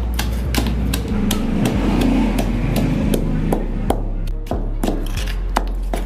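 Stone pestle pounding chilies and other ingredients in a heavy stone mortar: repeated dull knocks, irregular, roughly two a second.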